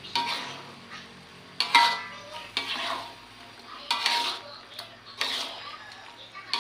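Spatula clanking and scraping against a metal wok while squid is stir-fried in sauce, about five strokes roughly a second apart, with a frying sizzle underneath.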